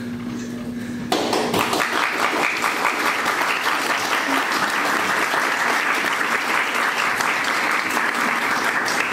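A song's last held note ends about a second in, and an audience applauds.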